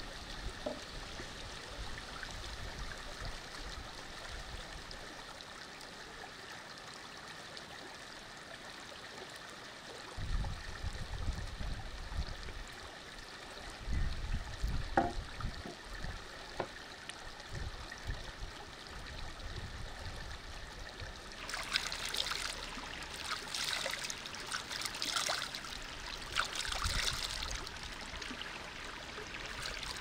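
A stream flowing steadily. Low rumbles come and go around the middle, and a crackling sound joins in for the last third.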